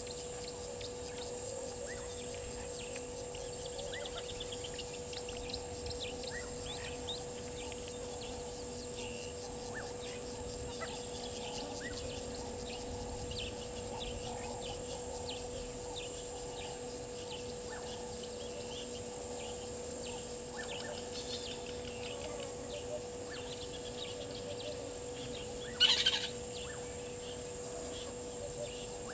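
Bush ambience at a waterhole: many short bird chirps scattered throughout over a steady high insect drone and a steady hum. Near the end a single brief, loud, sharp burst stands out.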